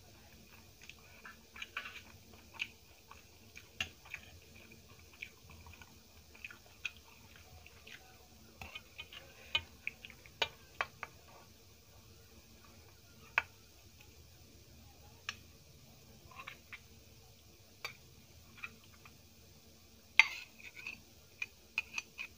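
Quiet eating sounds: faint chewing and mouth clicks, with scattered sharp clinks of a spoon against a glass bowl as curry is served onto rice, in two small clusters near the middle and near the end.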